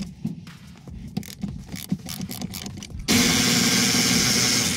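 Light clicks and knocks of a tool being fitted on a seat-rail bolt, then about three seconds in a cordless electric ratchet runs steadily for about a second and a half, loosening a T50 Torx seat-mounting bolt.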